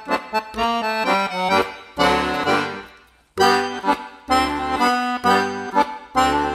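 Instrumental background music with a melody of changing held notes, breaking off briefly about halfway through; the frying sizzle is not heard.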